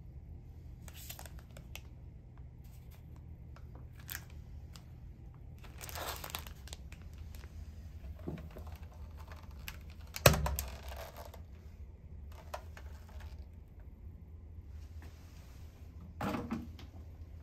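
Plastic wrappers and amenity packets crinkling and rustling as they are handled, in several short bouts. A louder bump comes about ten seconds in, and a steady low hum runs underneath.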